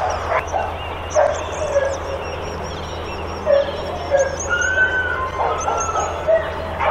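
Dogs at a boarding kennel barking and yelping over one another in an irregular, continuous chorus, with a drawn-out whining call about halfway through.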